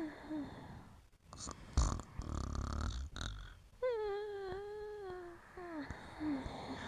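A dog asleep and dreaming: a snore about a second and a half in, then a long, high, slightly wavering whine lasting about a second and a half, followed by short falling whimpers.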